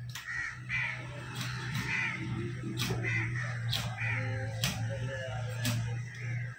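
Crows cawing over and over, with a few sharp knocks and a steady low hum beneath.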